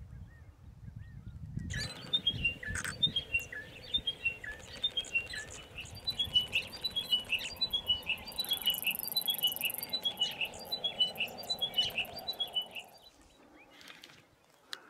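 Chiming wedgebill song: quick phrases of short, clear notes that step down in pitch, repeated over and over. It starts about two seconds in and stops a couple of seconds before the end.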